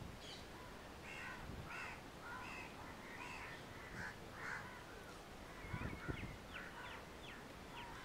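Crows cawing repeatedly, faint, with a soft thump about six seconds in and a quick run of short high falling calls near the end.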